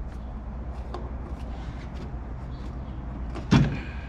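Light rubbing and handling of a rubber 90-degree elbow coupler as it is worked onto a turbocharger's compressor inlet, over a steady low hum, with one loud thump about three and a half seconds in.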